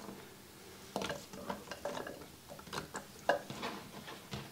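Chopped celery pieces dropped by hand into a crock pot, onto baby carrots and a chuck roast, making faint, irregular light taps and clicks that start about a second in.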